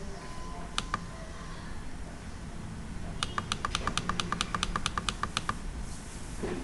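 Computer mouse button clicking: one press-and-release about a second in, then a fast run of clicks, roughly eight a second for about two seconds.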